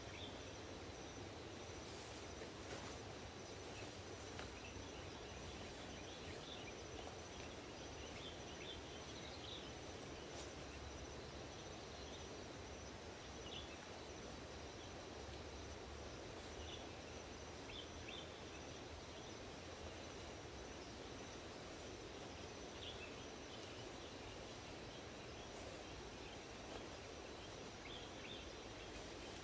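Faint outdoor forest ambience: a steady background hiss with scattered short, high bird chirps every few seconds.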